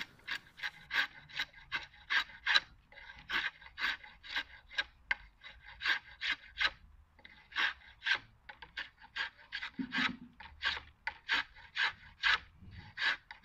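Drawknife shaving an oak offcut in quick repeated strokes, about two or three a second, each a short scrape of the blade cutting the wood as it is roughed toward a round dowel.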